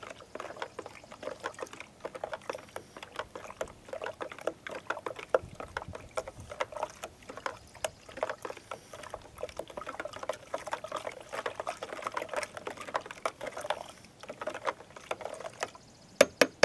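A spoon stirring brine in a plastic container: rapid, irregular clicking and sloshing of liquid. Near the end come a couple of sharper clicks.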